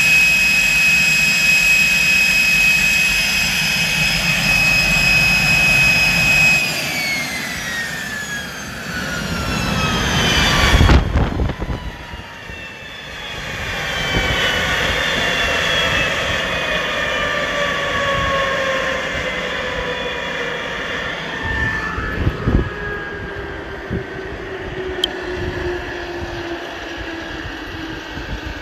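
Motorlet M701C-500 turbojet running with a steady high whine, then shut down about six seconds in: the whine falls steadily in pitch as the engine spools down. A loud rush of noise cuts in briefly around the middle.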